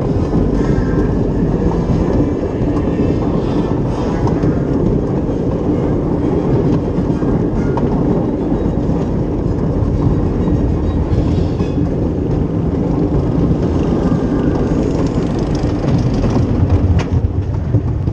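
Chain lift of the Great Coasters International wooden roller coaster Wodan hauling the train up the lift hill. It makes a loud, steady, dense mechanical rattle and clatter that does not let up.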